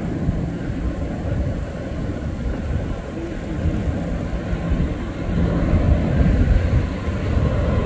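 Twin-engine jet airliner on final approach with its landing gear down, heard from the ground as a steady low rumble of jet engine noise. It grows louder from about five seconds in as the plane comes closer.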